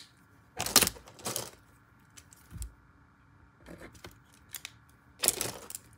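Plastic gel pens and paper being handled on a desk: a few short clattering, rustling noises, the loudest about a second in and again near the end, with small ticks between.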